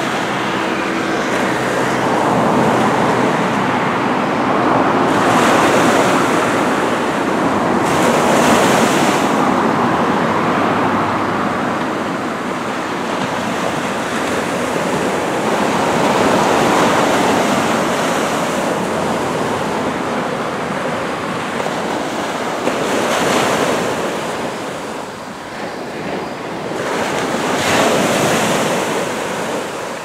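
Small waves breaking and washing up a sand beach: a steady rush of surf whose hiss swells every few seconds as each wave runs in.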